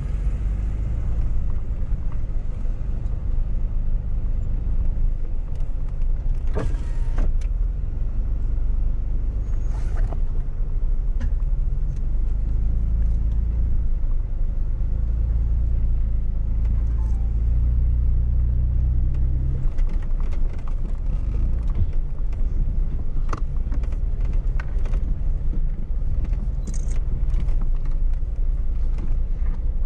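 Jeep's engine running at crawling speed over rock, a steady low rumble that swells for several seconds and drops back suddenly about two-thirds of the way through. A few short knocks come through here and there.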